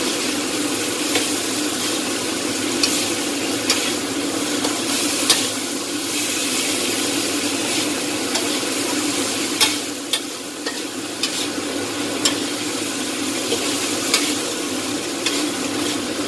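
Tempe, chicken gizzards, chillies and long beans sizzling as they are stir-fried in a wok. A metal spatula turns and scrapes them, with sharp clinks against the pan now and then.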